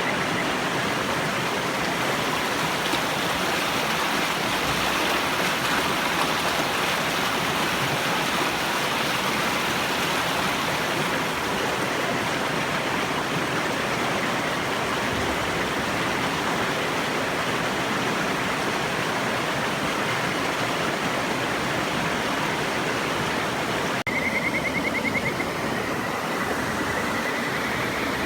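River water rushing steadily. Near the end, after a sudden cut, kajika frogs give two short rapid trills over the water noise.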